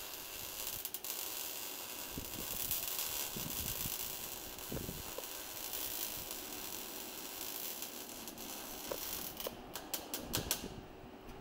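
Steady rushing jet-engine noise from a formation of four jets passing overhead, with a few sharp clicks near the end.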